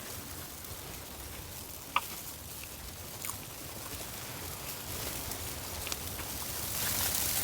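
Steady hiss of falling snow and wind on the tent's fabric, with a few faint ticks, growing a little louder near the end.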